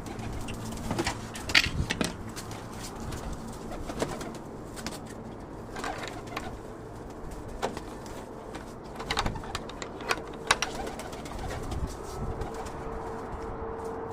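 Domestic pigeons cooing, with scattered sharp taps.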